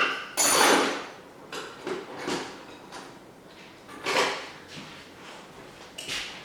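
Workshop handling noises from tools and parts: a string of short scrapes and clunks, the loudest about half a second in and others around two and four seconds in.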